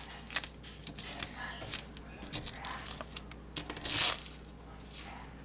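Crinkling and rustling handling noises with scattered small clicks, and one louder, longer rustle about four seconds in.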